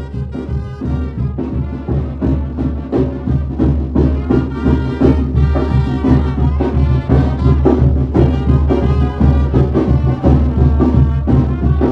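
Live brass band led by trumpets playing a dance tune.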